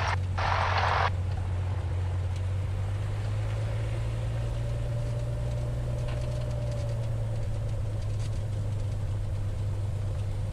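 A Cessna 182R's six-cylinder Continental O-470 engine and propeller running steadily at taxi power, a low drone heard inside the cockpit, with a short hiss in the first second.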